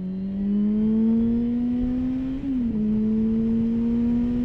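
Yamaha FZ6 inline-four with a baffle-free Scorpion exhaust, pulling under acceleration. Its pitch climbs steadily, drops at an upshift about two and a half seconds in, then climbs again.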